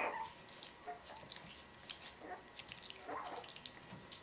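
Three-week-old puppies making a few faint squeaks and little whimpers, with small clicks and shuffling between them.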